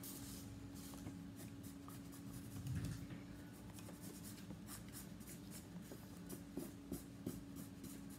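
Pencil sketching on paper: many quick, short scratching strokes, faint, over a steady hum.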